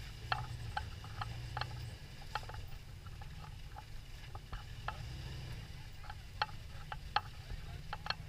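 Toyota FJ Cruiser's 4.0-litre V6 running low and slow as the truck crawls over rock, under a scatter of sharp, irregular clicks and ticks.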